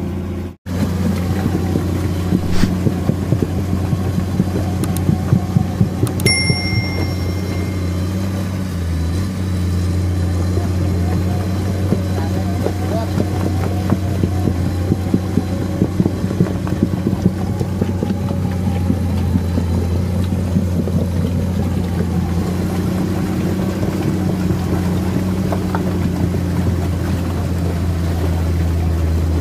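Komatsu PC210 excavator's diesel engine running steadily under load as it tracks through thick, sticky mud, with frequent irregular clanks and knocks from the tracks and the steel load. A short high metallic ring sounds about six seconds in.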